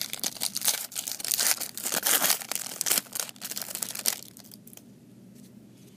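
Wrapper of a 1991 Fleer football card pack being torn open and crinkled by hand, a dense crackling that stops about four seconds in.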